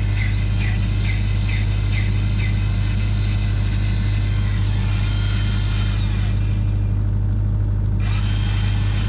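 Diesel engine of compact heavy equipment running steadily at a constant speed. A high chirp repeats about three times a second over the first couple of seconds, then stops.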